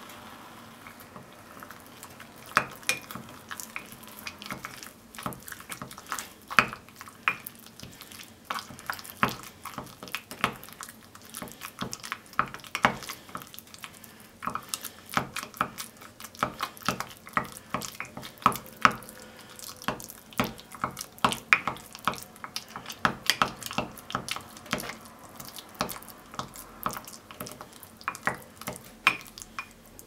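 Wooden spoon stirring and mashing a microwaved egg in a glass tumbler, with many irregular clicks and scrapes of the spoon against the glass.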